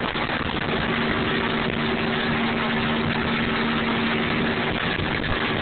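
A boat's engine running at idle, a steady low hum over a constant wash of wind and water noise.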